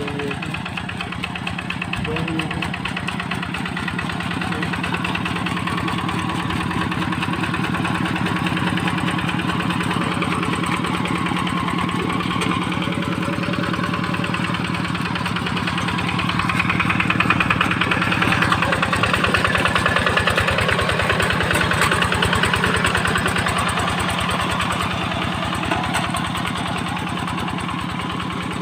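Rice-field tractor engine running steadily with a fast, even firing beat, growing a little louder a bit past halfway and then easing back.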